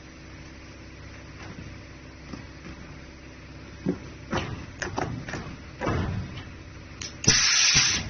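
Knocks and thuds as rubber tyres are pushed and set down on the steel table of a tyre compacting machine, several in quick succession in the second half, followed near the end by a loud hiss.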